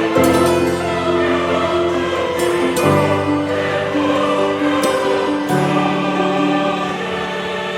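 Background music with a choir singing held notes over a sustained accompaniment.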